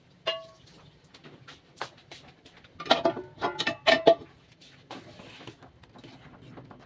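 Metal ladle clinking against the side of a metal saucepan as milk pudding is stirred: a couple of single knocks, then a quick run of clinks about three seconds in, each with a short ringing tone.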